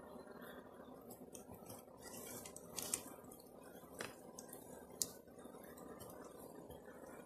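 Honeybee colony on open comb humming steadily, a low even drone, with three sharp clicks about a second apart near the middle.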